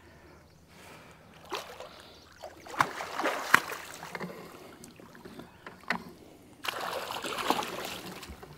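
Water splashing beside a boat as a hooked blue catfish is brought up and netted, with several sharp knocks and clatters against the boat and a longer stretch of splashing near the end.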